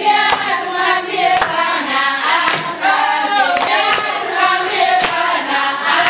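A group of women singing together, with hand claps about once a second keeping the beat.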